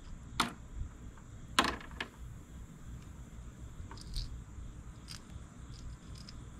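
Small clips snapping off the mesh fabric wrapped around a fishing lure: two sharp clicks, about half a second and a second and a half in, followed by a few faint light ticks as the mesh is handled.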